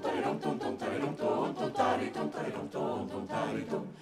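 Twelve-voice a cappella choir singing a madrigal in quick, short syllables, with a brief break just before the end.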